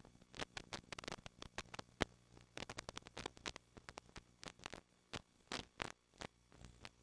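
Faint, irregular crackling clicks, several a second, like static.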